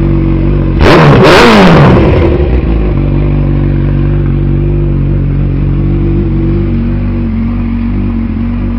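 Honda CB1000R inline-four engine idling through a Hurricane aftermarket exhaust, blipped once about a second in: the revs shoot up and fall back to a steady idle within about two seconds.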